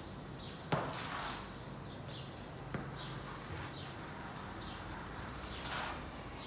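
Floor squeegee working wet tiles: two sharp knocks about two seconds apart and soft swishes of water being pushed across the floor.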